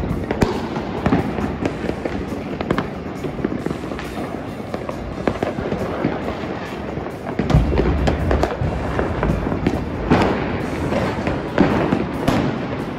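Many fireworks and firecrackers going off across a city at once: continual crackling and popping with scattered booms, and a heavy low boom about seven and a half seconds in.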